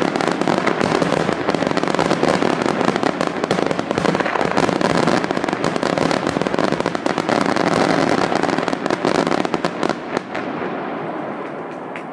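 Aerial fireworks bursting overhead: a dense, continuous crackle of many bangs and glittering stars at once, thinning out and dying down about ten seconds in.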